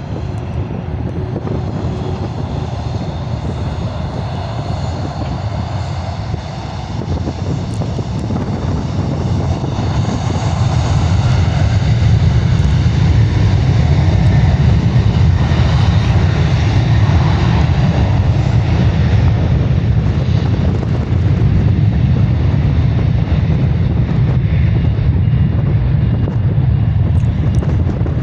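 Jet engines of a Boeing 737-800 (two CFM56-7B turbofans) running at takeoff thrust, a steady deep noise that grows louder about a third of the way in and stays loud.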